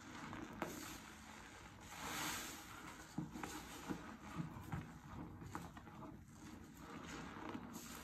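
A foam-soaked sponge squeezed and kneaded by hand in thick dish-soap lather: wet squelching and crackling pops of bursting bubbles, with a swell of hissing foam about two seconds in and again near the end.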